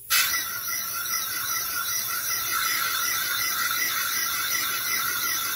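Compressed air hissing through a homemade PVC-pipe and wood air engine as it runs, a steady hiss that starts suddenly as the air comes on.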